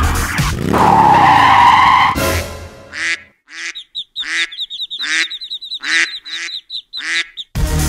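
Cartoon duck quacks: a string of separate quacks about half a second apart over a high fluttering trill. Before them, for about the first two seconds, loud music with a tyre-squeal-like screech.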